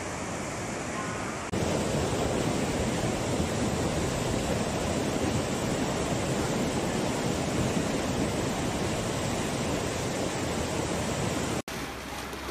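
Rushing muddy floodwater making a steady, loud rush of water. It gets suddenly louder about a second and a half in, then cuts out for an instant near the end and comes back quieter.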